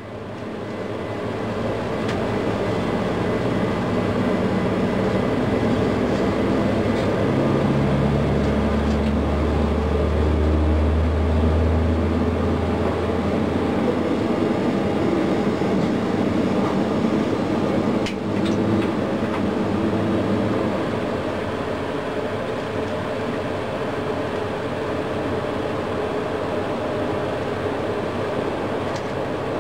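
Boeing 737 turbofan engine being turned over by its pneumatic air starter during a normal start: a steady rumbling hum that builds up over the first two seconds. A short click about 18 seconds in.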